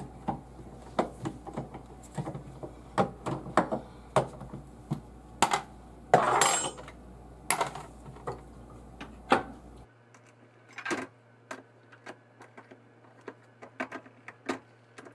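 Repeated metallic clicks and clinks from a reloading press and a Grip-n-Pull bullet puller worked fast, pulling bullets from cartridges, with a short rattle about six seconds in.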